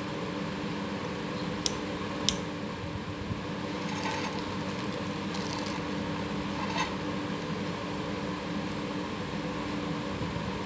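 Steady mechanical hum of a fan or running machinery throughout. Over it, a pump mechanical seal's metal parts are handled: two sharp clicks about two seconds in, then light crinkling of the plastic wrapping.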